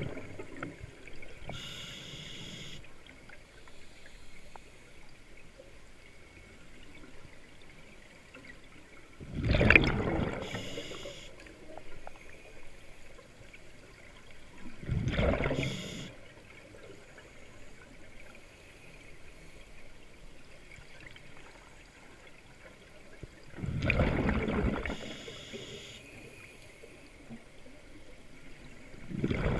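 Scuba diver breathing through an open-circuit regulator underwater: three loud gushes of exhaled bubbles about a second and a half long, some six to nine seconds apart, with another starting at the very end. Each gush ends in a fainter high hiss.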